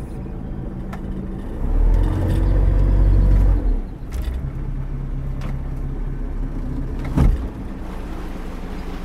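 Motorboat engine running steadily at low speed, a continuous low hum. It swells into a louder low rumble for about two seconds near the start, and a single thump cuts through about seven seconds in.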